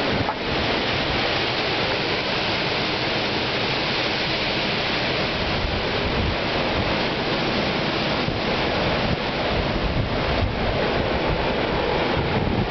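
Hurricane-force wind making a steady, dense rush through the trees, like a jumbo jet right above, with gusts buffeting the microphone.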